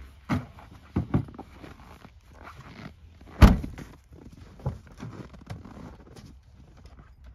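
Irregular knocks and thumps, several in the first half and the loudest about three and a half seconds in.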